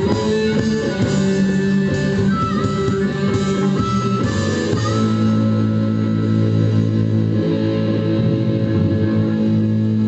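Blues band playing an instrumental passage led by guitar, with bass underneath; about halfway through the busy notes give way to long sustained chords.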